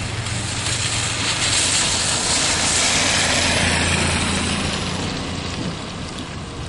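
A car driving, with engine hum and road and wind noise swelling for a few seconds, then easing off.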